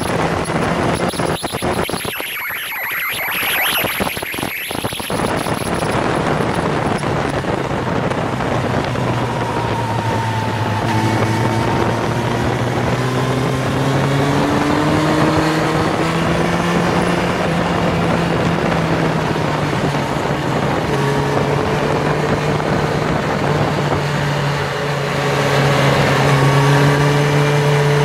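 Motorcycle engine running hard on a race track under heavy wind rush. Its pitch climbs and falls with throttle and gear changes, and the wind noise turns briefly choppy a few seconds in.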